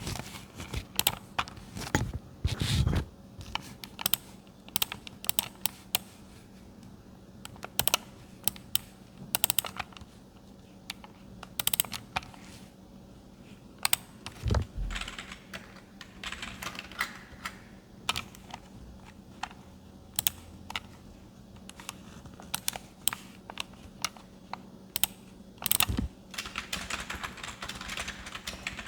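Typing on a computer keyboard with mouse clicks: irregular bursts of sharp keystrokes separated by short pauses, with a few heavier thuds among them, over a faint steady hum.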